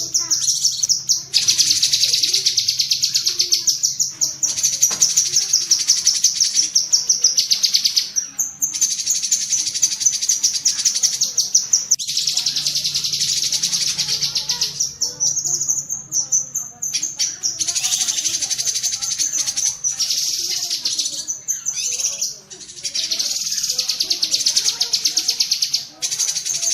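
Cucak kinoi singing 'tembakan' song: long runs of very rapid, high-pitched chattering notes lasting several seconds each, broken by short pauses.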